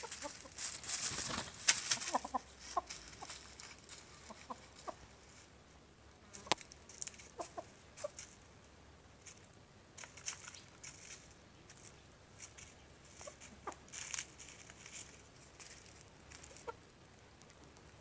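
Chickens clucking briefly now and then while they scratch and peck through dry leaf litter, with rustling that is busiest in the first couple of seconds.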